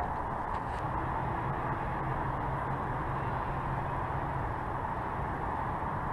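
Steady, even outdoor background hiss with no distinct events: the open-air ambience on the camera's microphone while the angler sits still holding his pole.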